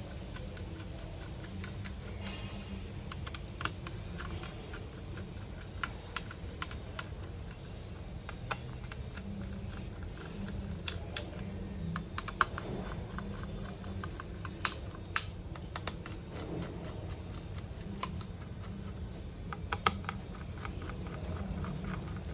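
Small screwdriver loosening the screws that hold a laptop's copper heat sink to the motherboard: light, irregular clicks and ticks of metal on metal, over a steady low hum.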